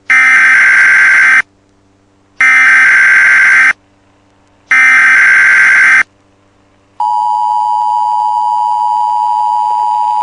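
Emergency Alert System tones: three harsh, buzzy digital SAME header data bursts, each a little over a second long with about a second of silence between. About seven seconds in, the steady two-tone EAS attention signal starts, the signal that precedes the spoken alert.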